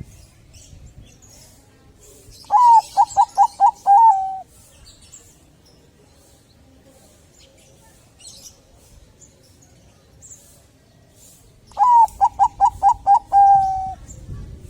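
Zebra dove (Bangkok-strain perkutut) cooing two song phrases, each a quick run of about six short staccato notes that ends in a longer, slightly lower held note. Faint high chirps run in the background.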